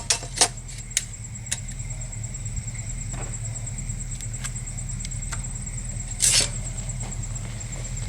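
Crickets trilling steadily over a low hum, with a few light clicks near the start and a short scrape about six seconds in, from hand work on the wooden rack.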